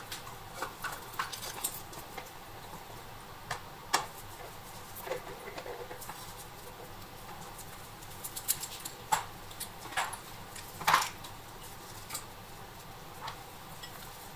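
Small objects handled on a workbench: a plastic mini vice and a marker set down and fiddled with on a glass plate, giving irregular light clicks and taps, the sharpest about eleven seconds in.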